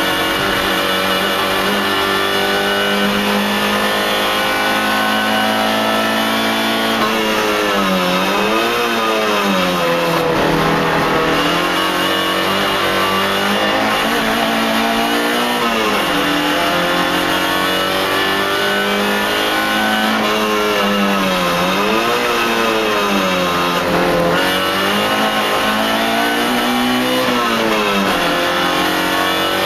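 Race car engine heard from inside the cabin under hard driving. Its pitch climbs as it revs out and drops sharply several times as it comes off the throttle and downshifts for corners.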